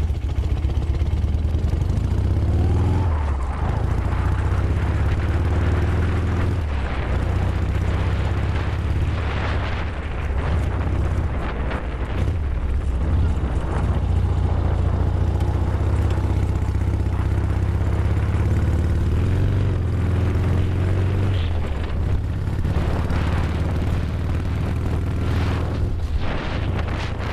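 Chang Jiang CJ750B sidecar motorcycle's flat-twin engine running with a deep, loud exhaust note, the revs rising and falling several times.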